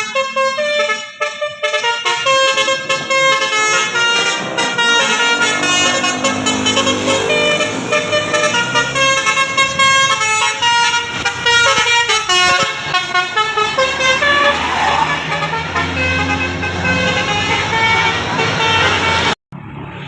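Bus 'telolet basuri' musical horn playing a tune of stepping, flute-like tones, loud and continuous, breaking off abruptly near the end.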